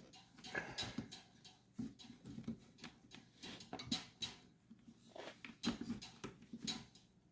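Irregular clicks, taps and rustling of hands working a clamp and the rubber air filter boot back into place in an ATV airbox.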